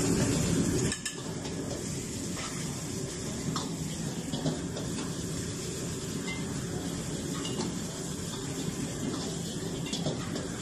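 Metal ladle scraping and clanking against a wok while fried rice is stir-fried, over a steady sizzle. A louder low rush drops away about a second in.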